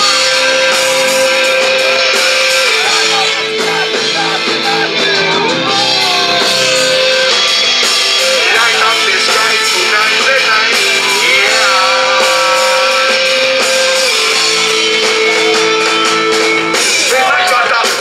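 Live hip-hop band playing: held chords that change every few seconds, with guitar and a voice over them.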